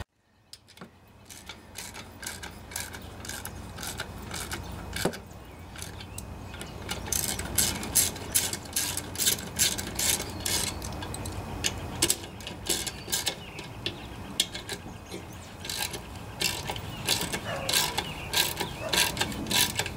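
Socket ratchet clicking in quick runs as the muffler mounting bolts are turned in on a Briggs & Stratton OHV mower engine, into holes including one just repaired with a Helicoil thread insert.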